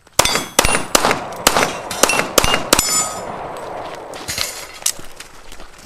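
Pistol shots fired in quick succession, about seven in under three seconds, each followed by the clang and ring of a steel target being hit. After a short pause come two more shots with ringing.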